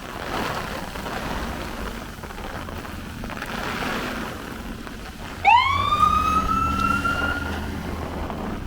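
Steady wind and rain noise, then about five and a half seconds in an emergency-vehicle siren starts abruptly and loudly, its pitch sweeping up and then holding for about two seconds.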